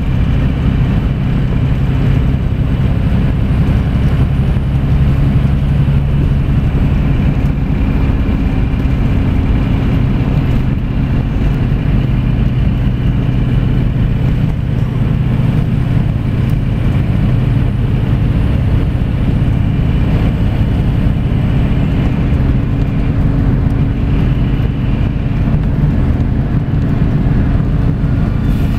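Scania coach's diesel engine droning steadily, with tyre and road noise, heard inside the cabin near the back of the bus. The engine note settles a little lower about ten seconds in.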